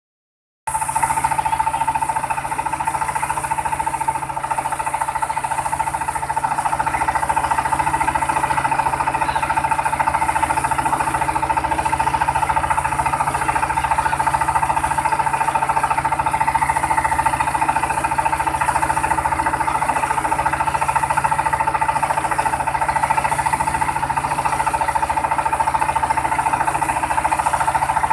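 A vehicle-mounted mobile rice milling machine running steadily, with a constant high whine over a dense mechanical rattle. It starts abruptly under a second in.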